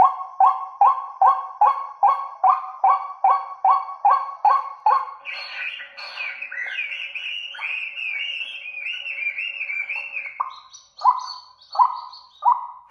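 Recorded bird calls played through horn loudspeakers from a 263B amplifier, as a bird-trapping lure. A run of honking calls comes about twice a second, then a higher, fast warbling chatter for several seconds, then a few more honking calls near the end.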